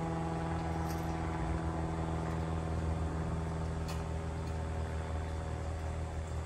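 A steady low machine hum with an even drone, like a motor running close by, and a couple of faint clicks, about a second in and about four seconds in.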